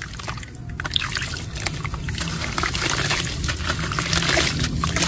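Soft, dusty cement crumbled by hand over a tub of water, with gritty crackling as the block breaks and small pieces trickle and splash into the water. It grows denser and louder after about a second, over a low steady rumble.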